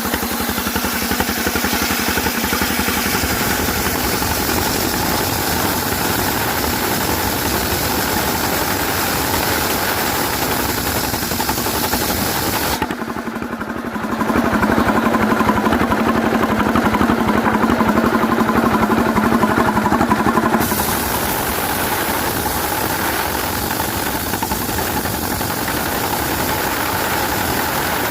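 Sawmill machinery's engine running steadily. A little before halfway the sound changes abruptly and grows louder, with a strong deep hum, for about seven seconds, then returns to the earlier steady running.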